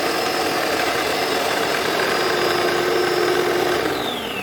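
Electric blender running, chopping a mix of fresh herbs, garlic and ginger, with a steady high motor whine. Near the end the motor is switched off and winds down, its whine falling in pitch.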